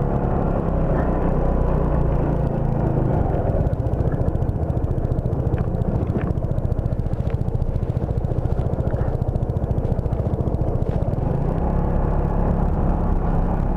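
Motor scooter engine running as the scooter sets off: an even hum at first, turning rougher and busier about three seconds in as it gets under way, and settling back to an even hum near the end.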